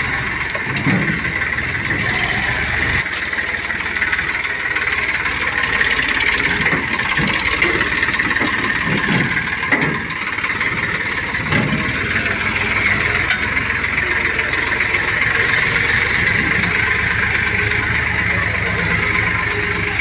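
Eicher 480 tractor's diesel engine running steadily while pulling a loaded trolley, with a few brief knocks along the way.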